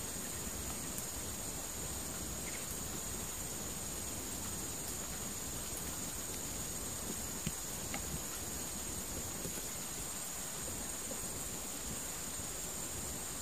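Insects droning steadily in one unbroken high-pitched band over a soft even hiss of forest ambience, with one small click about seven and a half seconds in.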